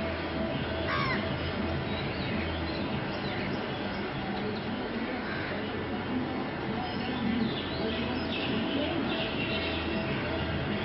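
Crows cawing now and then, with smaller birds chirping, over a steady low rumble.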